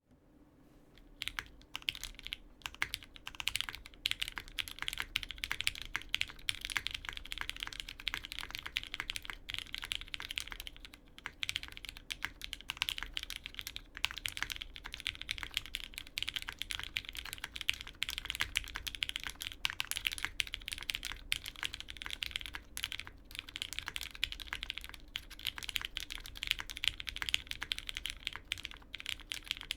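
Steady fast typing on a custom TKL mechanical keyboard with lubed Cherry MX Black linear switches, an O-ring-mounted POM half-plate and GMK keycaps. Dense runs of key clacks begin about a second in, with brief pauses between bursts.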